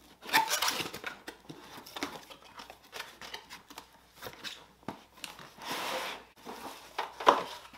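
Cardboard box being opened by hand: a packing-tape seal peeled off, flaps handled, and a molded paper-pulp insert scraping and rustling against the cardboard as it is pulled out. Scattered clicks and knocks, with a sharp knock near the end.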